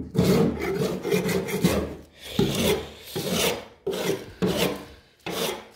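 Hand scraping of torch-softened paint off a car door panel: about six rasping strokes with short pauses between them.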